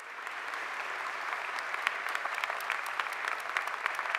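Audience applauding, a dense patter of many hands clapping that swells up over the first half second and then holds steady.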